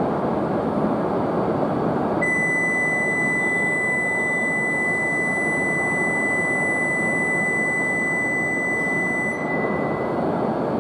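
Station platform departure signal: one steady, high electronic tone held for about seven seconds, starting about two seconds in and cutting off near the end. It sounds over steady background noise from the platform and the Shinkansen train waiting with its doors open.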